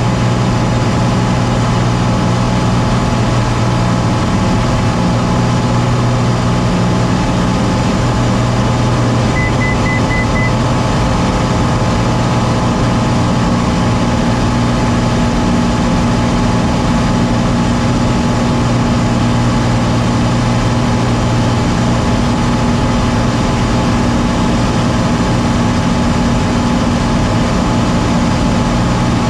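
Small airplane's engine and propeller droning steadily, heard from inside the cockpit, its low tone shifting slightly about a dozen seconds in. A quick run of about five short, high beeps sounds about ten seconds in.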